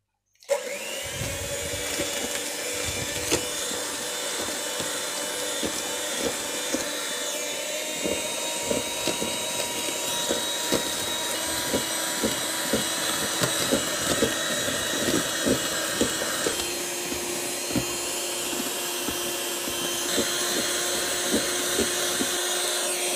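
Electric hand mixer starting up about half a second in and running steadily, its beaters whipping eggs and sugar into a thick foam in a plastic bowl, with frequent light clicks. The hum changes note about two-thirds of the way through.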